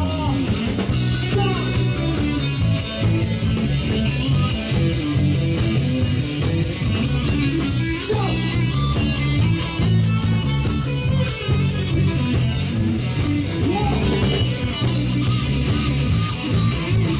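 Live rock band playing an instrumental passage with no vocals: guitar over a drum kit, with a steady cymbal beat.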